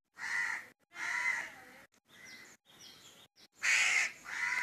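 A crow cawing in a series of harsh calls: two in the first second and a half, fainter chatter after, then two louder caws near the end.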